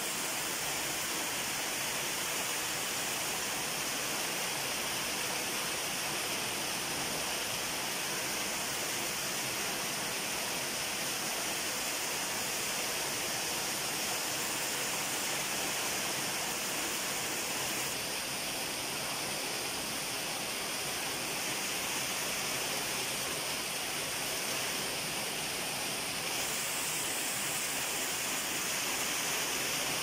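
Heavy rain falling, a steady even hiss.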